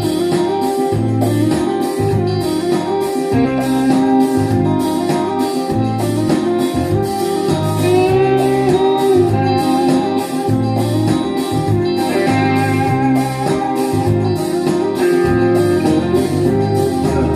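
Instrumental guitar passage of a rock song with a steady beat, played back through vintage 1970s loudspeakers.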